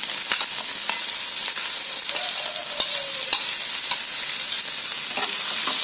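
Chopped shallots, garlic, chillies and onion sizzling in hot oil in a wok, with a metal spatula clicking and scraping against the pan as they are stirred.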